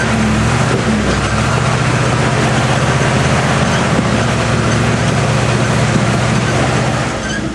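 International Harvester Scout trail rig's engine running at a steady, unchanging speed while the truck sits on a slick rock ledge. The engine note fades away at the very end.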